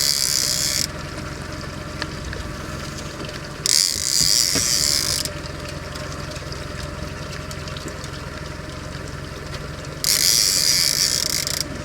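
Fishing reel ratcheting in three bursts of about a second and a half each while a spoonbill is fought on the line, over the steady low hum of the boat's motor.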